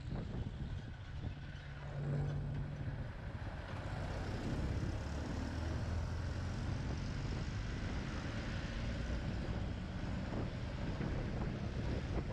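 Yamaha XT250 Serow's single-cylinder engine running steadily at riding speed, with wind over the helmet microphone. Around the middle a hiss rises as the tyres run through standing water on the road.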